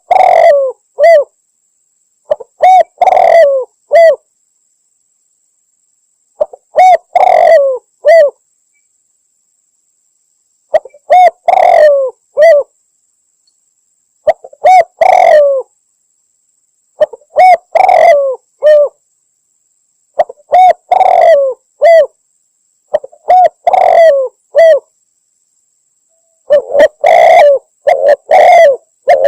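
Spotted dove cooing: short phrases of several coos, repeated about every three seconds with silence between, and closer together near the end. It is a hunters' lure call, sold as a female spotted dove calling a male.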